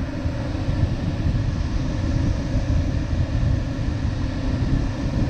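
Steady rushing airflow noise in the cockpit of an LS7-WL glider in unpowered flight, deep and even with no engine.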